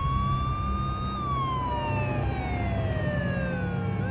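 An emergency vehicle siren wailing. It rises slowly for about a second, falls steadily for about three seconds, and starts to climb again at the end, over a steady low rumble.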